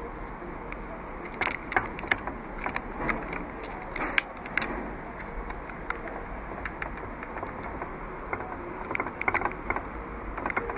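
Handling noise as a small plastic action camera is fitted onto a drone's camera gimbal and strapped down with a rubber band: scattered light clicks and taps, a cluster of them near the end, over a steady background hum.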